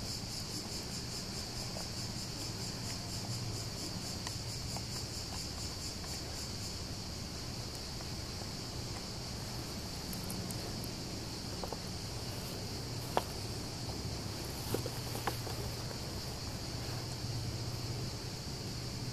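A chorus of insects singing, high-pitched, pulsing rapidly for the first several seconds and then holding as a steady shrill note. A few faint clicks come in the second half.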